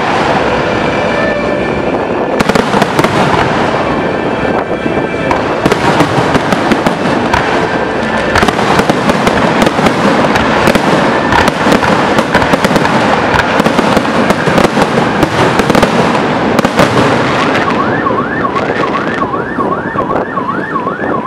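Fireworks display: a dense, continuous crackle and pop of aerial shells and ground fireworks, with many sharp bangs. Near the end a quick run of repeated rising whistles, about three a second, sounds over the crackling.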